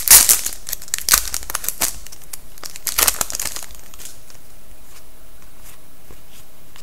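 Crinkling of a trading-card pack wrapper and cards being handled, in crackly bursts over the first few seconds, then quieter.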